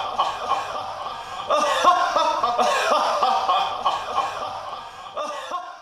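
A young man's theatrical villain laugh, a long run of 'ha ha ha' syllables that fades out near the end.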